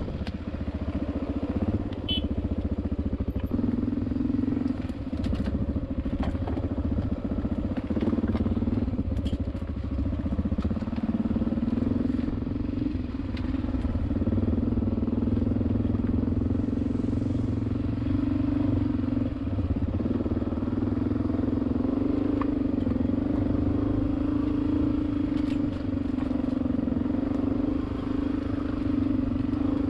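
Vehicle engine running steadily on the move, its note rising and falling a little with speed, with a low rumble and scattered faint clicks.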